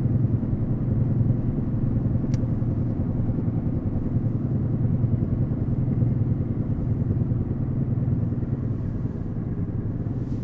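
Fiat 500 1.3 Multijet rolling on its own, heard from inside the cabin: a steady low drone with a rhythmic vibration from the front, which the occupants put down to a cracked ball or roller in a front bearing. A single short click about two seconds in.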